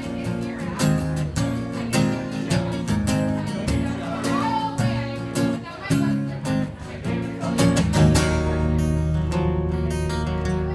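Acoustic guitar strummed in a steady rhythm during an instrumental break between sung verses. About eight seconds in the strumming turns into a denser, more even pattern.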